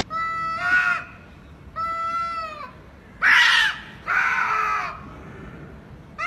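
Domestic cats yowling at each other in a standoff: about four drawn-out, wavering cries with short pauses between them, one of them a harsher screech a little past the middle.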